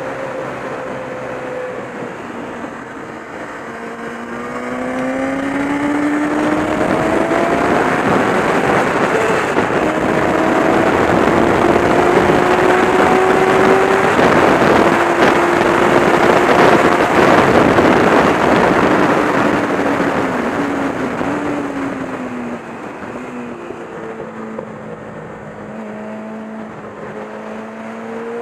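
Racing motorcycle engine heard onboard, with a heavy rush of wind noise. The engine note climbs as it accelerates and holds high and loud through the middle. It falls as the bike slows about two-thirds of the way in, then starts rising again near the end.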